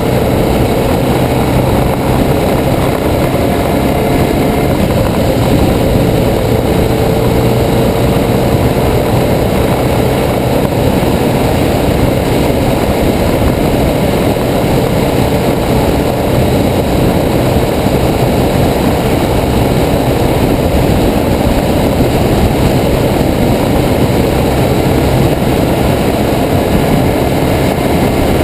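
A 2009 BMW R1200GS's boxer twin running steadily at cruising speed under heavy wind rush, with a rattle from a broken camera mount.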